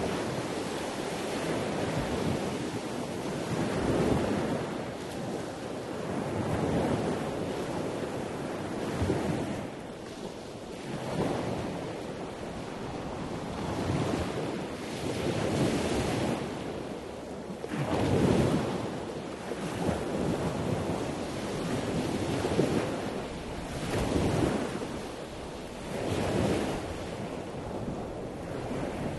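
Wind rushing over the microphone outdoors, swelling and easing in gusts every two to three seconds.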